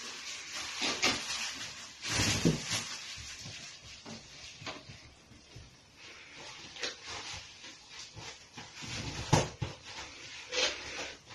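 A ferret playing in and around a fabric play tunnel: irregular short sounds, some in quick clusters, scattered through.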